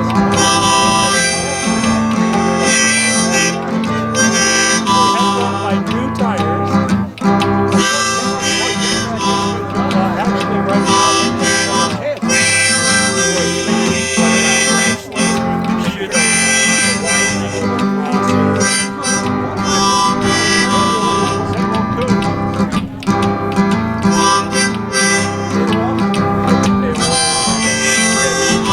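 Live instrumental break in a country ballad: a harmonica carries the melody over strummed acoustic guitar.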